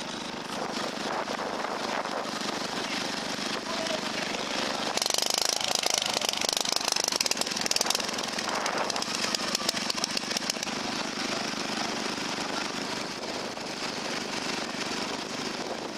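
Small ride-on lawnmower engines running with a rapid, rattling pulse. One gets louder about five seconds in for around five seconds, then eases back.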